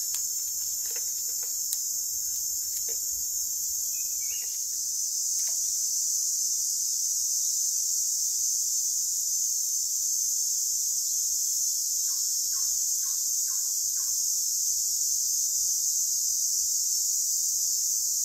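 Steady, high-pitched drone of an insect chorus in tropical forest, running unbroken. A brief faint chirp comes about four seconds in, and a run of five short faint calls about twelve seconds in.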